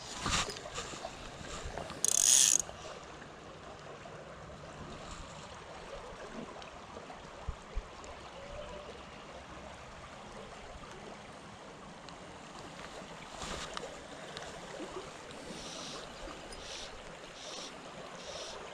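A creek running steadily, with the scrapes and rustles of fly line being stripped in by hand and a fly rod and reel being handled; a short loud rasp about two seconds in, and a couple of small knocks a few seconds later.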